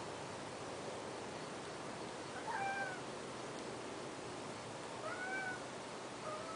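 Cat meowing: two short, arching meows a few seconds apart, with a third starting near the end, over a steady hiss.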